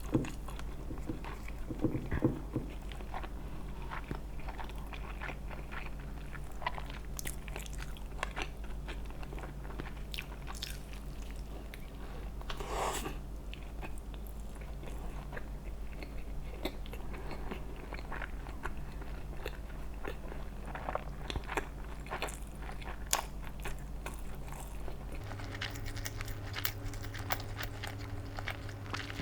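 Close-miked eating sounds: a person biting and chewing food, with many short crunches and crackles, over a steady low hum.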